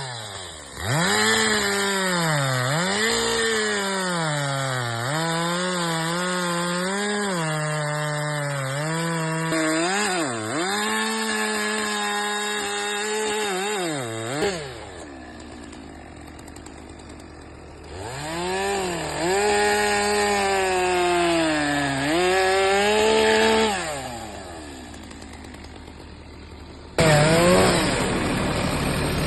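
Stihl chainsaw carving wood: the engine revs high and dips again and again as the chain bites. It drops to idle about halfway, revs and cuts again, idles once more, then jumps abruptly to a loud steady run near the end.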